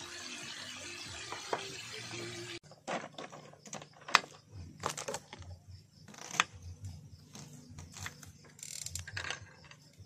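Meat sizzling steadily in a frying pan on a gas camp stove, cut off sharply after about two and a half seconds. Then a knife chopping red onion on a wooden cutting board: irregular sharp taps, roughly one or two a second, the loudest a little past the middle.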